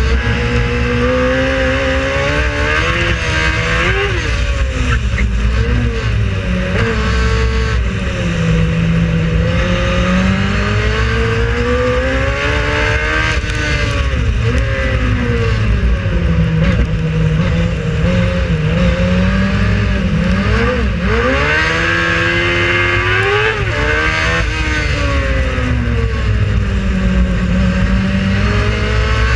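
Race car engine running hard throughout, its pitch climbing through the gears and dropping between them, with quick dips and blips on downshifts about four, thirteen, twenty-one and twenty-four seconds in.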